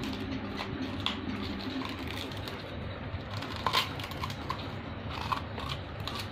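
Labrador chewing and tearing dry husks, giving irregular crackles and snaps, with the sharpest cluster a little past halfway, over a steady low hum.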